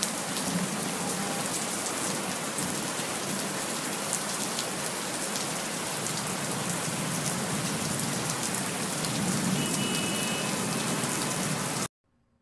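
Steady loud rushing hiss with faint scattered ticks, like rain, that cuts off suddenly near the end.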